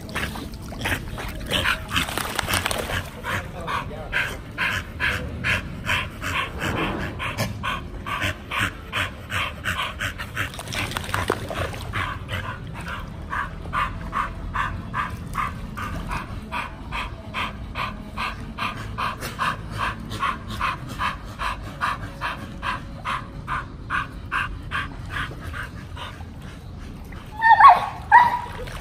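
A pit bull panting in a steady rhythm of about three breaths a second, then giving a short, louder whine near the end.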